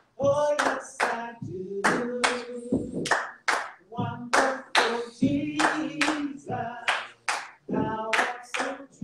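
Voices singing a slow gospel song, with hands clapping along in a steady beat.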